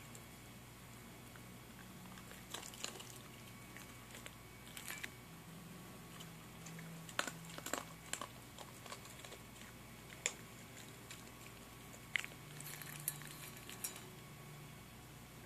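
Small dog eating dry kibble from a stainless steel bowl: scattered crunches and clicks in bunches a few seconds apart, over a faint steady hum.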